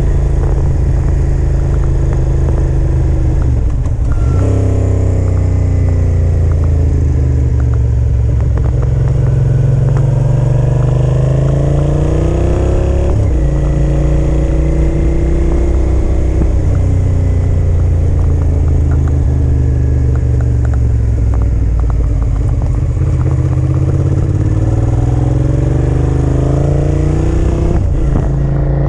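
A motorcycle engine runs under way while the bike is ridden. Its pitch climbs and falls several times, with a sudden drop about halfway through.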